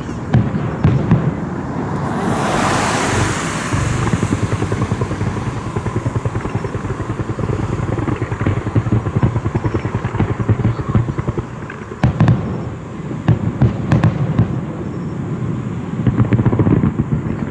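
Fireworks going off: a steady low rumble of bursts and crackling, with a hissing, crackling shell burst about two seconds in and sharp bangs about twelve and fourteen seconds in.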